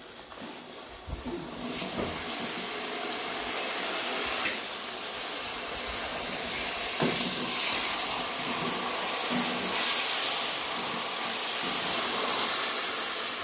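Boneless mutton pieces hissing and sizzling in hot oil with browned onions as the meat's water hits the oil. A steady hiss starts about a second and a half in, with a few knocks from a wooden spoon stirring in the aluminium pot.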